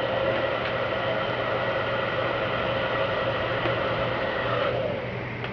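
Heat gun running steadily, its fan blowing with a steady whine, then switched off a little before the end as it heats vinyl tint film to form it over a taillight.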